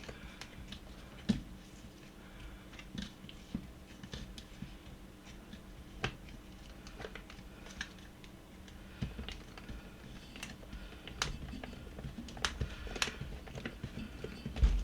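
Screwdriver tightening up a part of a small plastic coffee grinder: irregular small clicks, ticks and scrapes of the tool and plastic parts, with a few sharper knocks.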